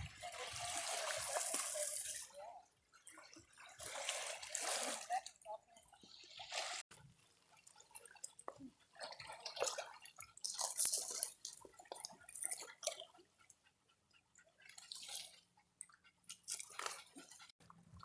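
Water splashing and dripping in irregular bursts, with short clicks in between.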